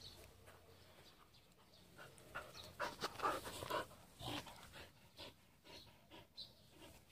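Jindo dog panting close by with quick, short breaths, strongest about two seconds in.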